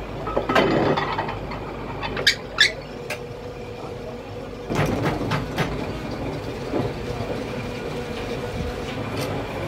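Metal lathe: a few sharp metal clicks and clinks as the welded tie rod is handled in the chuck and the carriage handwheel is turned, then a steady machine hum with a fixed tone that starts about halfway through.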